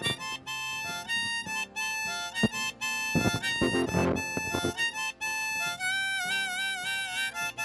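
Harmonica played from a neck rack, a melodic solo of changing notes over strummed acoustic guitar, with a held, wavering note about six seconds in.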